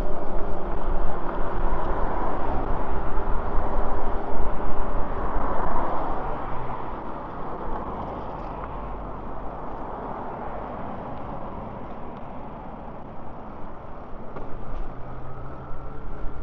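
Wind rushing over the microphone, with tyre and road noise from an e-bike riding along a road and passing traffic. The sound eases off to a lower, steadier rush about halfway through.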